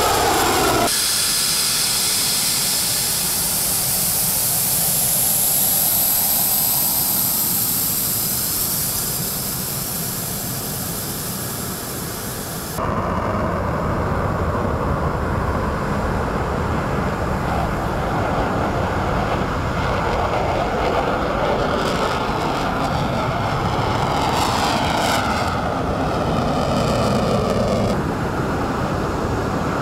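F-16 fighter jet engines at takeoff power. First comes a high whine and hiss that slowly fades as one jet climbs away. After a sudden cut about a third of the way in, a deeper, steady roar follows from another F-16 rolling down the runway and lifting off on afterburner, its sound sweeping and phasing as it passes.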